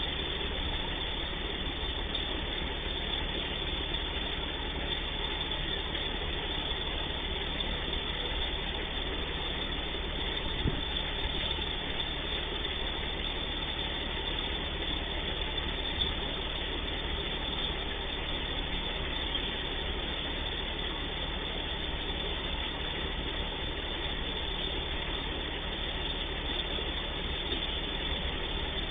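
Diesel engine of a stationary rail track-maintenance machine idling steadily, an even low hum and rumble.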